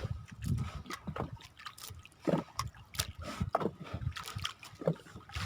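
Water sloshing and trickling around a small boat, with irregular light knocks and drips.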